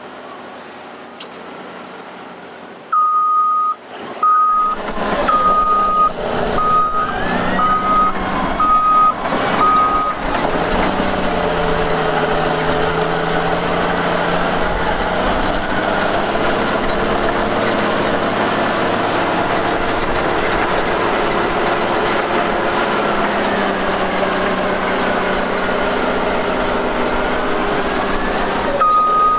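A back-up alarm on a tracked earthmoving machine beeps about once a second as the machine reverses, over heavy diesel engine noise. The beeps stop and the engine keeps working, its pitch shifting now and then. Near the end the beeping starts again.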